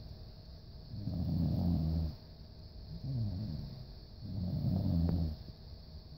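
Golden retriever snoring in its sleep: two loud rumbling snores about three seconds apart, each about a second long, with a softer, pitch-sliding breath between them.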